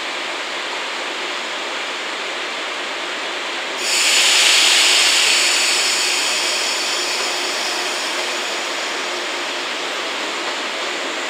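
JR West 115 series electric train running on the rails, a steady rushing noise; about four seconds in, the wheel and rail noise rises suddenly into a loud hiss with a high squeal, then fades over the next few seconds.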